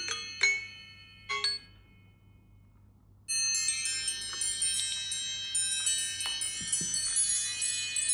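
Smartphone ringtone of struck chime-like notes dying away in the first second and a half; after a short pause, another chiming phone ringtone of many ringing bell notes starts about three seconds in and plays on.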